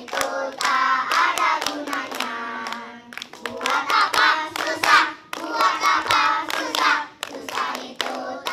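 A group of young children singing together while clapping their hands, with sharp claps coming several times a second over the sung melody.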